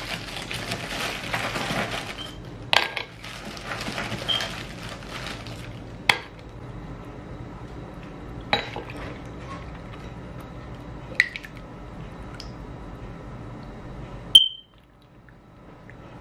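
Kitchen utensils clattering as a metal ladle spoons fruit in a milky syrup from a plastic bowl into a glass of ice. A rustling, clattering stretch comes first, then single sharp clinks every few seconds. The loudest clink comes near the end and rings briefly.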